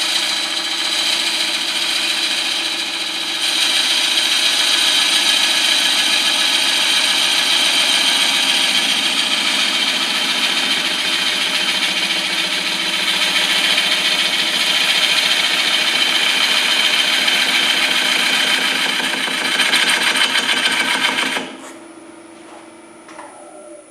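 A turning tool cutting the spinning wet hard maple bowl blank on a cast-iron STRATOS XL wood lathe, a steady, even cut without knocking. The cut stops about 21 seconds in, leaving the lathe running much more quietly.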